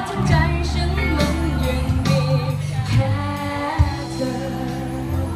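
Female vocalist singing a pop ballad live into a handheld microphone, backed by a band on keyboard, electric guitar and drums.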